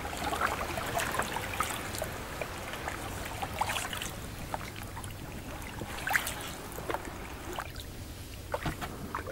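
Rowboat being moved with a wooden oar: the blade dipping and pulling through the water, with small splashes, drips and scattered light knocks.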